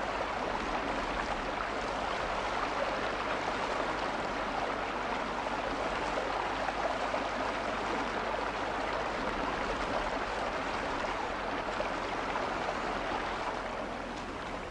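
Rushing water of a mountain stream and waterfall, a steady rush.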